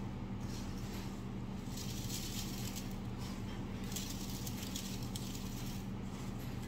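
Gloved hand pressing and turning veal scallops in a basin of breadcrumbs: soft, irregular rustles of crumbs, the plainest about two seconds in and again about four seconds in, over a steady low hum.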